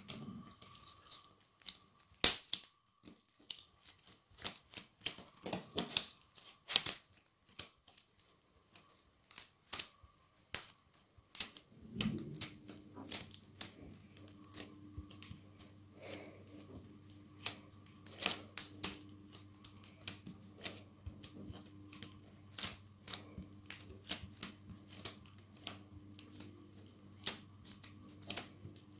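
Fingers pressing, poking and flattening thick metallic slime, giving many sharp, irregular clicks and pops.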